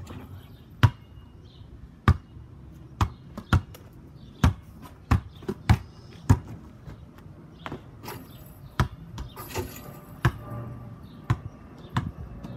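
Basketball bouncing: repeated sharp thuds of a ball being dribbled and shot, coming every half second to a second at an uneven pace.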